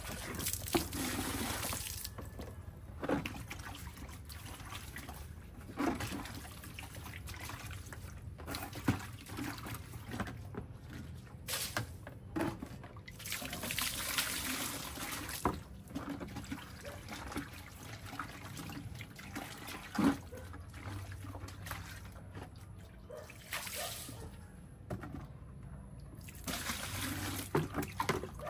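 Water poured from one plastic bucket into another, trickling and splashing onto wet concrete, with several sharp knocks from the buckets being handled.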